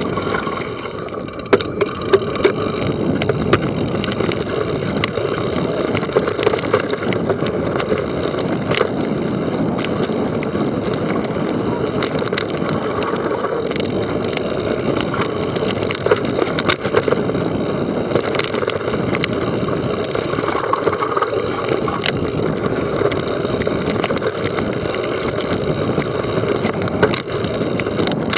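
Mountain bike rolling down a rocky, loose trail: steady tyre and wind rush with frequent clicks and rattles as the bike hits rocks and roots.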